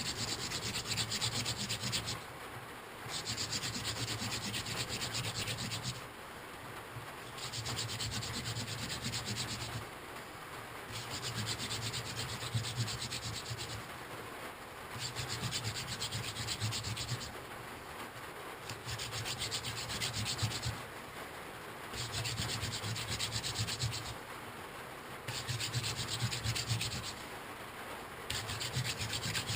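Hand-drill fire set, a mullein spindle spun back and forth between the palms on a basswood fireboard, making a dry rasping rub of wood on wood. It comes in nine runs of two to three seconds each, with short pauses between, as the hands go back to the top of the spindle.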